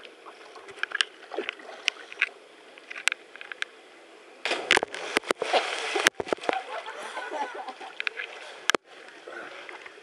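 Water splashing and sloshing right at the microphone as the camera rides at the surface of a waterfall pool: scattered drips and plops at first, then a louder rush of falling spray from a little under halfway, briefly cutting out a couple of times.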